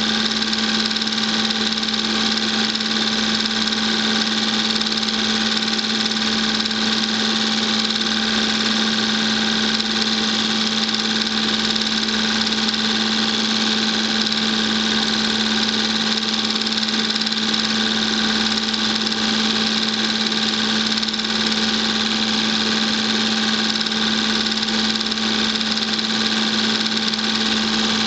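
Film projector running: a steady mechanical whir with a constant motor hum, unchanging throughout.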